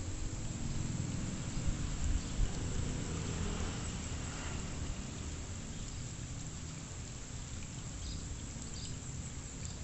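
Shallow pond water splashing and sloshing as hands and legs work in it along a muddy bank, over a steady low rumble. A few small splashes come near the end.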